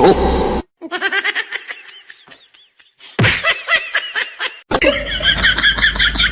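Laughter in quick, high-pitched bursts, broken into several segments by abrupt cuts.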